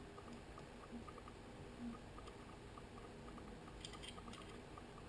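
Quiet room tone with faint handling of a Leatherman Surge multitool: a few light metal clicks and scrapes about four seconds in, as a file is being fitted into its holder.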